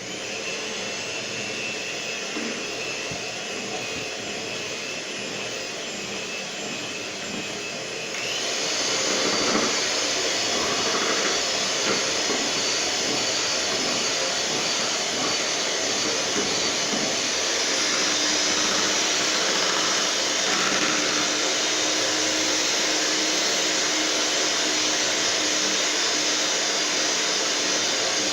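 Electric mixer beating cake batter, its motor whining steadily; about eight seconds in it gets louder and higher-pitched, as if switched to a faster speed, and runs on at that pitch.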